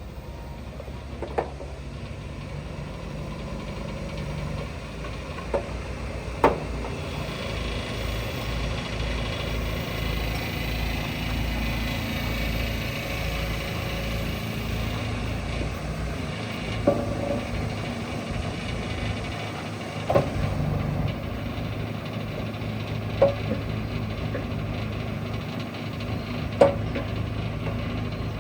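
Komatsu 140 backhoe's diesel engine running steadily, with a short sharp knock every few seconds, about seven in all.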